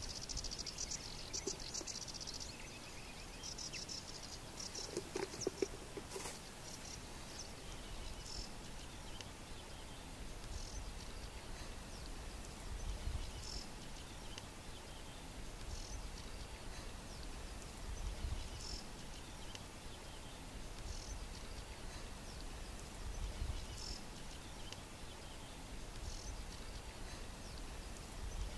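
Insects chirping in the grass, densest in the first few seconds, with a short high chirp repeating every two to three seconds after that. Wind rumbles on the microphone in gusts, and a brief pitched call stands out about five seconds in.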